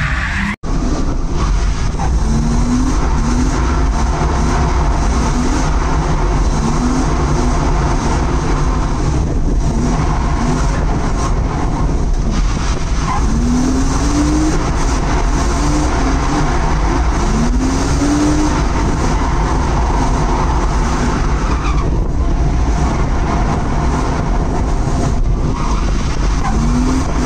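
Drift car sliding with its tyres skidding while the engine runs at high revs, with short rising rev surges every so often. The sound cuts out for an instant about half a second in.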